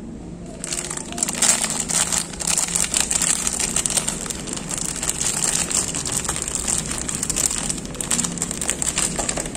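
Clear plastic bag crinkling as multimeter test leads are handled and pulled out of it. The crinkling starts about half a second in and goes on almost without a break.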